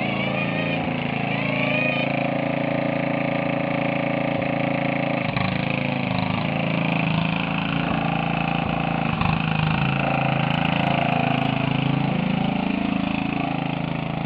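Riding lawn mower's small engine running steadily as the mower drives across the grass, its pitch wavering a little.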